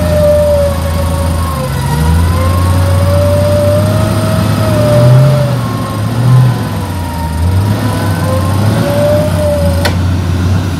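Electric winch on the front bumper of a Toyota Land Cruiser 80-series whining under load as it pulls the truck through deep mud, its pitch wavering with the strain, over the low running of the engine. The whine stops with a click near the end.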